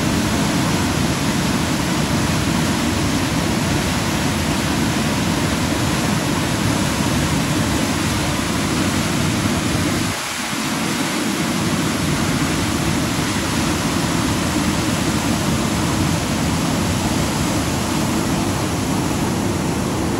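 Floodwater of a swollen river rushing and churning against stone embankment steps, a steady, loud rush of turbulent water that dips briefly about halfway through.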